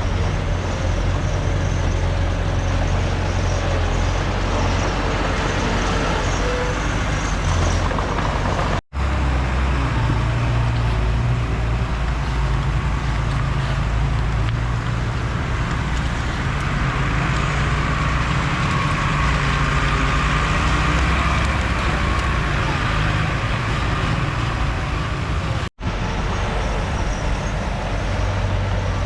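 Heavy diesel earthmoving machinery (bulldozer and dump trucks) running steadily with a deep engine rumble, the engine note rising under load for several seconds in the latter half. The sound cuts out for an instant twice, at edit cuts about nine and twenty-six seconds in.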